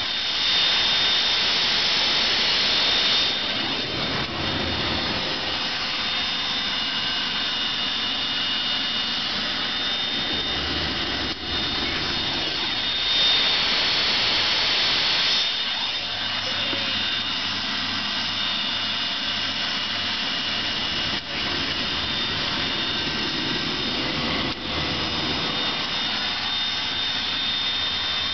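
Business jet's rear-mounted turbofan engine running during a ground test run, heard from inside the cabin: a steady roar with a high whine on top. It grows louder and hissier twice, for a couple of seconds each, about a second in and again near the middle.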